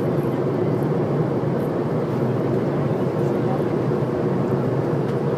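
Steady cabin noise inside a Boeing 757-200 airliner: an even rumble of the engines and airflow, with no change in level.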